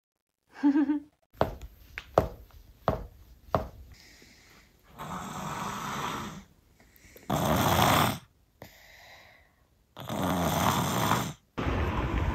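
A few sharp knocks of a toddler's wooden rocking horse on a wooden floor, then a person snoring: several drawn snoring breaths a couple of seconds apart, each rising and cutting off.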